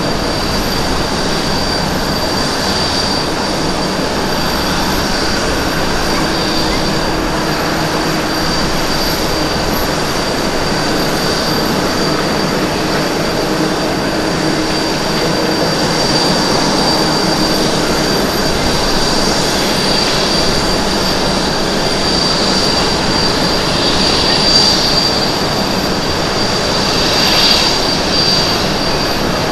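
Boeing 777-200ER airliner's jet engines on landing approach, touchdown and rollout: a loud, steady rushing roar with a constant high whine, swelling slightly in the second half.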